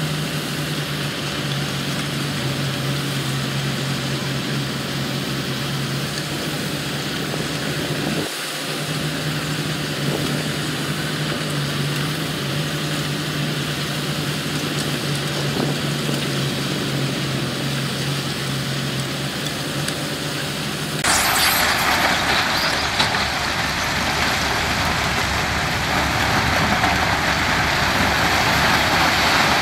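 Heavy diesel construction machinery running with a steady engine drone, briefly broken about eight seconds in. About two-thirds of the way through it switches abruptly to a louder, noisier machine sound.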